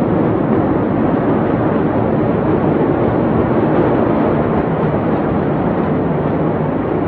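Steady, loud rushing noise with no distinct events.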